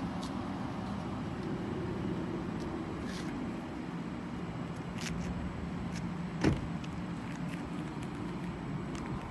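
A car idling with a steady low hum. A single sharp thump comes about six and a half seconds in, with a few faint clicks around it.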